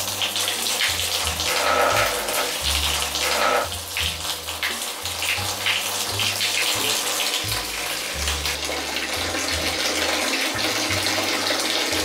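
Water running hard from a wall-mounted bathroom faucet, a steady splashing gush, with background music underneath.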